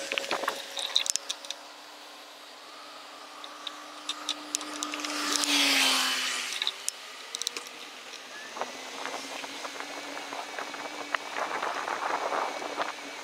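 Bicycle rattling and clicking over a woodland trail, with a swell of rushing noise that rises and fades about halfway through, followed by dense rapid rattling.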